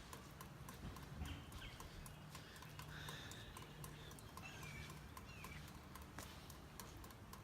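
Faint footsteps, a steady run of light clicks, with a few short bird chirps.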